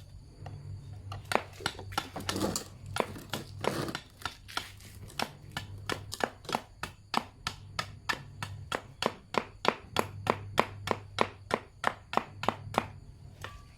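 Sharp, regular strikes of a tool on a wooden broom handle being cut down for a hoe handle, spaced unevenly at first, then about three a second.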